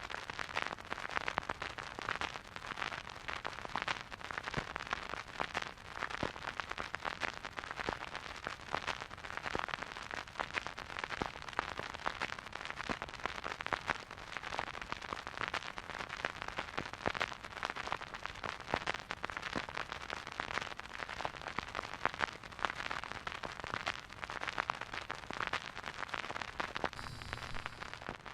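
Vinyl record crackle from a stylus riding a silent groove on a record player: a steady, dense stream of small clicks and pops over a faint hiss.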